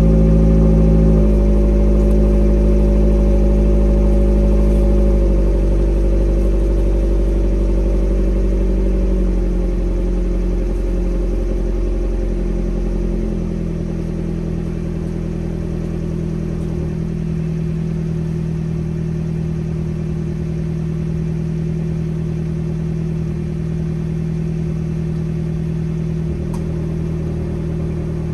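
Fiat 124 Abarth's 1.4-litre turbocharged four-cylinder idling through a 2.5-inch Good Win Racing crosspipe and MagnaFlow System One exhaust with resonator. The idle speed drops in steps about one, five, nine and thirteen seconds in, then holds steady.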